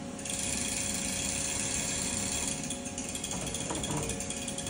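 Overhead hoist running as it lowers a bare engine block on its chain: a steady hiss with fine, rapid clicking that starts a moment in.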